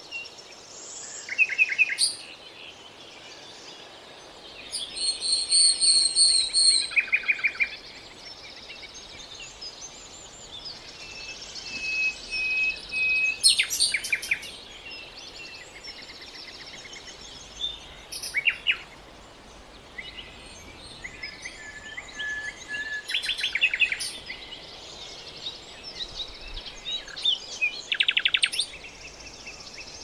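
Songbirds singing short trills, chirps and whistled notes every few seconds over the steady rush of a rocky mountain stream.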